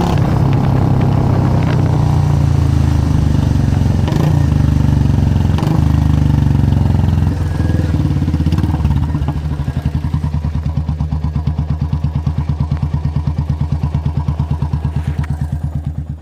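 Royal Enfield Meteor 350's single-cylinder engine running through a Punjabi-style aftermarket exhaust, held at raised revs at first, then dropping about seven seconds in to idle with an even thump of about eight beats a second.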